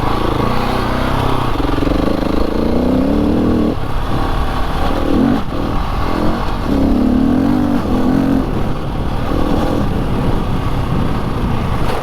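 Motorcycle engine running while riding, its pitch rising and falling again and again as the throttle is opened and closed.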